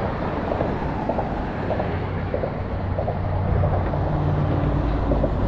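A passing motor vehicle's engine: a steady low hum that grows louder from about halfway through, over a low outdoor rumble.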